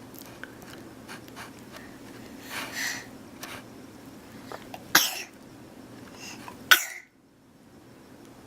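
A baby sneezing: two sharp sneezes about a second and a half apart, the second the loudest, with a softer breathy sound a couple of seconds before them.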